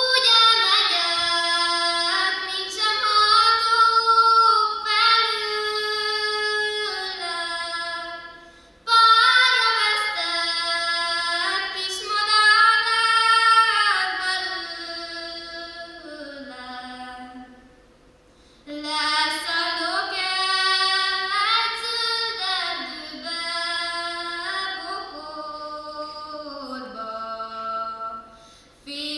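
A young woman singing Hungarian folk songs from Kalotaszeg solo and unaccompanied, in three long phrases with short breaks about 9 and 18 seconds in.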